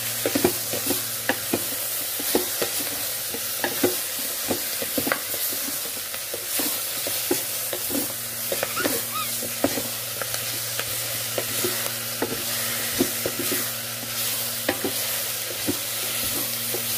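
Beef chunks with onion, garlic and ginger sizzling in the stainless steel inner pot of an Instant Pot, stirred with a wooden spoon that knocks and scrapes against the pot many times. A low steady hum runs underneath.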